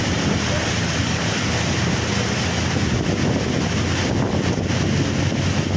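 Floodwater rushing and churning past a bus as it wades through a flooded street, with wind buffeting the microphone and a low steady hum underneath.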